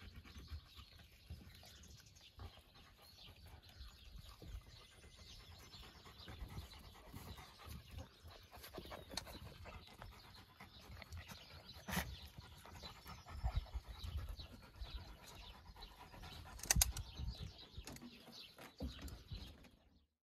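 Faint panting and scuffling from a grey wolf and a litter of wolf puppies jostling on sand, with a couple of sharp clicks partway through.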